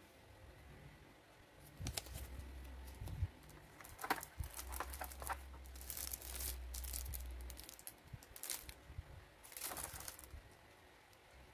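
Paper and clear plastic packaging rustling and crinkling in irregular bursts, with a few sharp handling clicks, as the instruction leaflet and the hair clipper's plastic tray are handled.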